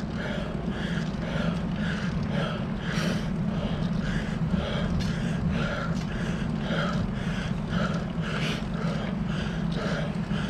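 A cyclist panting hard and rhythmically, about two breaths a second, from the effort of climbing a steep hill, over a steady low rumble.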